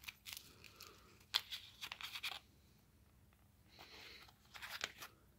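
Foil MRE beverage pouch being torn open by hand: faint crinkling and tearing in several short spurts, the longest about a second and a half in.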